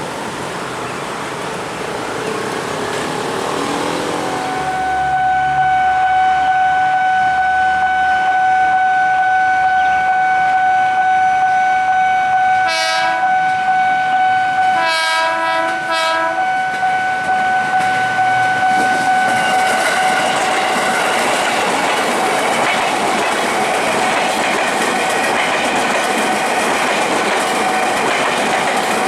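A steady warning tone, typical of a level-crossing alarm, sounds from about five seconds in. Around the middle an approaching train gives three short horn blasts. It then passes the crossing, its wheel and carriage noise filling the last third.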